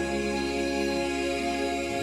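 Slow gospel music holding sustained chords at the close of a sung line, with the bass note changing near the end.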